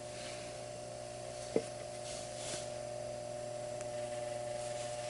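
Bell & Gossett LR20BF hot-water booster pump running with a steady low drone hum, with a single light click about a second and a half in. The hum comes from a pump overdue for oiling, not lubricated in years.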